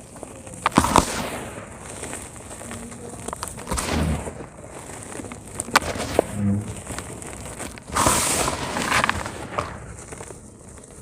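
Dry cement chunks crumbling and breaking: several crunchy, crackling bursts a few seconds apart, with sharp snaps among them.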